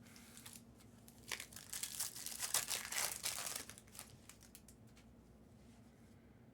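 Plastic foil wrapper of a trading-card pack crinkling and tearing as it is ripped open, a stretch of crackling about a second in that lasts two to three seconds.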